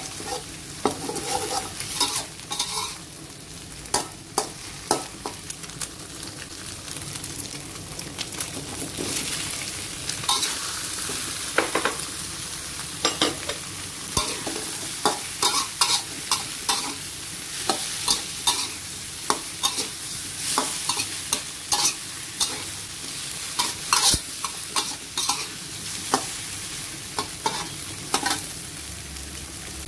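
Metal spatula scraping and tapping against a metal wok while egg, shrimp and angled gourd sizzle in hot oil. The sizzle is a steady hiss broken by irregular sharp scrapes and clacks of the spatula, and it grows louder about ten seconds in.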